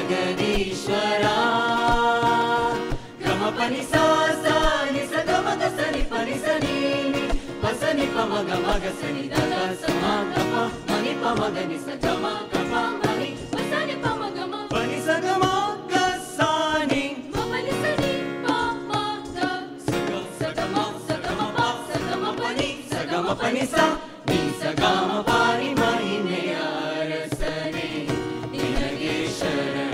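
Mixed male and female vocal group singing an Indian-style devotional song in harmony, accompanied by acoustic guitar.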